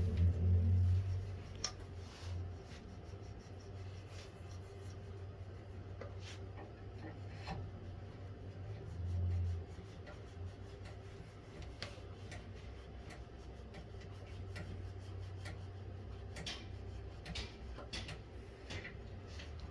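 Scattered light scrapes, rubs and small taps of hand work on wood, irregularly spaced, over a low steady hum that swells briefly near the start and again about halfway through.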